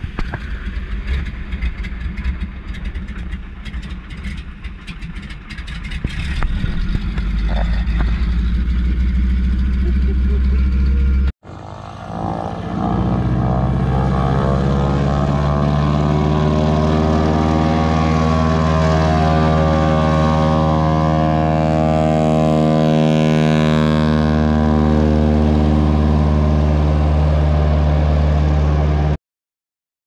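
Floatplane engine and propeller. First comes a loud, rough drone with scattered clicks, as heard inside the cockpit. After a sudden cut, the engine is heard across open water as a steady drone of several even tones, rising slowly in pitch and then holding. It cuts off abruptly near the end.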